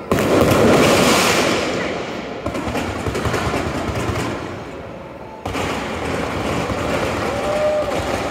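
Fireworks show: aerial shells bursting overhead with dense, rapid crackling. A sudden loud burst comes just after the start and another about five and a half seconds in, each trailing off in crackle.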